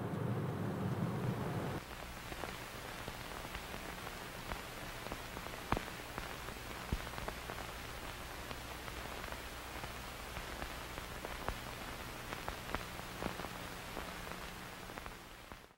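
Faint steady hiss with scattered small clicks and crackles, like static. A low hum in the first couple of seconds cuts out.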